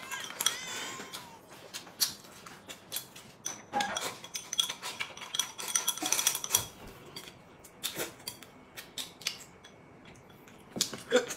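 Chopsticks clicking and tapping against a small porcelain rice bowl while someone eats from it: a scattered series of short, light clicks.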